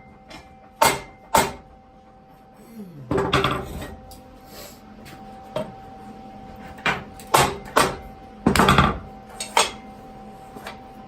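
Hammer blows on a steel tube frame on a steel welding table, knocking the frame over to bring it square: sharp metallic clanks, a couple early and a quicker cluster in the second half, with two longer scraping clatters as the frame shifts.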